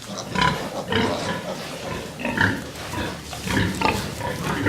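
Sow and her young piglets in a pen, giving a quick, uneven run of short grunting calls, a few a second.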